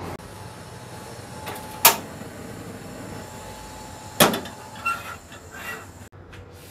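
Gas stove burner hissing steadily under a carbon-steel wok, with a sharp click about two seconds in and a metal clank a little after four seconds as the wok is set down on the burner grate, followed by a few faint knocks.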